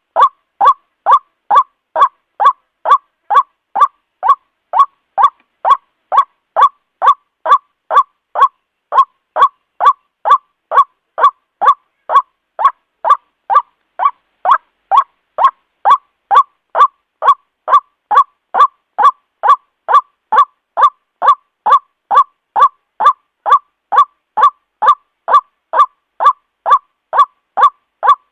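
White-breasted waterhen (Amaurornis phoenicurus) giving its loud 'ruak' call over and over, about two calls a second at an even pace. It is a lure call recording used to attract the birds for trapping.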